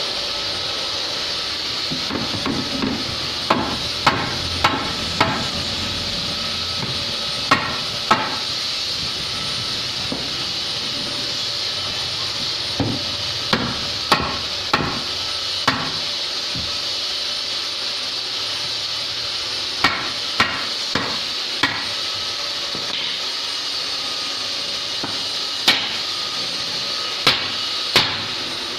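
Hammer knocking on wood, sharp single strikes coming in small irregular groups of two to four, about twenty in all, over a steady hiss.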